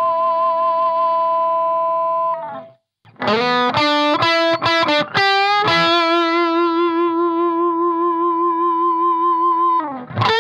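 Electric guitar played through a clean boost pedal (mid boost at 700 Hz) into a Marshall valve amp, driven to overdrive: a held note with vibrato that stops about two and a half seconds in, a quick run of notes, then a long sustained note with vibrato, with new notes starting near the end.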